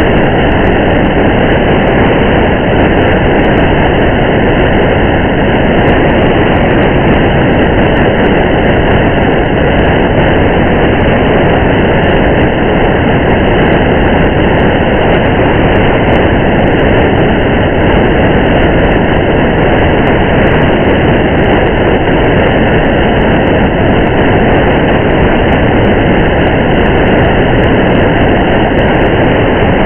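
Steady rain and driving ambience: an even, muffled hiss and rumble of rain and car road noise that does not change.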